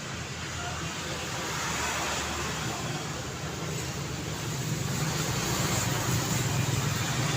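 Busy city road traffic: vehicles passing with a steady engine hum and road noise, growing slightly louder in the second half.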